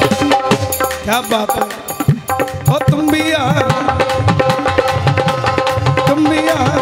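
Devotional bhajan band music: a hand-drum rhythm under sustained held instrumental notes, with no singing.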